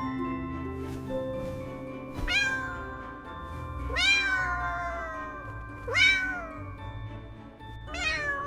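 Four kitten meows, about two seconds apart, each rising then falling in pitch, over soft background music.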